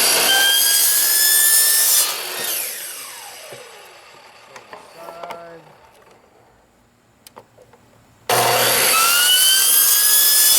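Small electric saw with a wood blade cutting through vinyl rain gutter in two runs. Each run starts with the motor's rising whine. The first stops about two seconds in and the blade winds down; the second starts again about eight seconds in.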